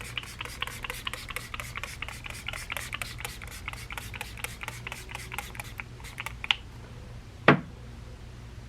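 Hard Candy setting spray's mist pump sprayed in quick repeated squirts, about five a second, stopping about six and a half seconds in. A single knock follows about a second later.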